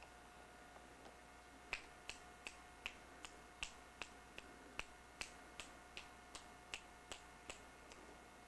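An even run of sharp clicks, about two and a half a second, starting a little under two seconds in and stopping near the end.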